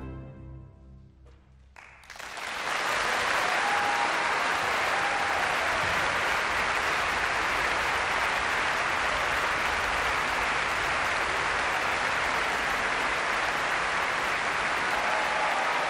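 The orchestra's final chord dies away in the hall's reverberation, and about two seconds in the audience breaks into steady applause.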